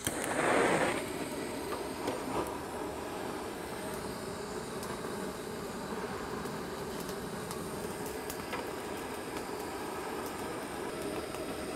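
Handheld butane torch on a gas canister, its flame rushing steadily as it is held to firewood in a steel fire pit to light it. The rush is loudest for about the first second, with a few faint clicks through it.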